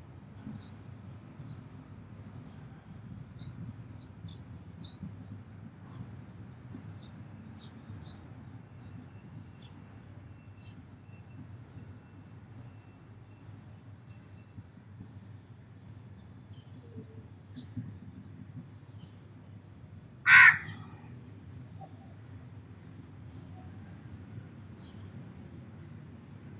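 Small birds, sparrows, chirping in many brief high notes scattered throughout over a low steady background noise, with a single loud caw of a crow about twenty seconds in.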